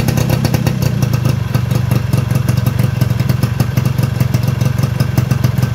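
Yamaha F1ZR's two-stroke single-cylinder engine idling steadily, blowing exhaust smoke, running on a freshly fitted DSK Neomax aftermarket CDI.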